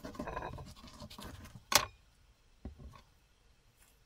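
A small knife cutting into an avocado on a plastic cutting board: a scratchy scraping for about a second and a half, then one sharp knock, with a fainter knock about a second later.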